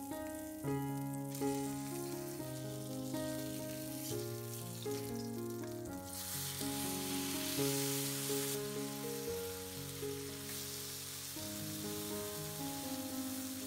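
Lemon sole fillets frying in butter and oil, sizzling; the sizzle swells sharply about halfway through as a fillet is flipped onto its uncooked side in the hot fat. Background music plays throughout.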